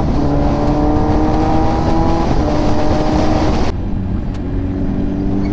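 Kawasaki Ninja 1000SX inline-four engine pulling on the move, its note climbing steadily, then dropping to a lower note a little past halfway, with wind rush throughout.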